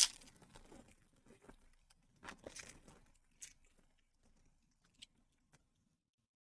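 Soft rustling and crinkling of Pokémon card packaging being handled, in a few short bursts over the first three seconds, with a small click about five seconds in.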